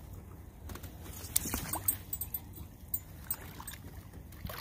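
Water splashing and sloshing against the side of a boat as a large sturgeon is lowered over the gunwale and released into the river, with a few sharp knocks and handling noises, most of them between one and two seconds in.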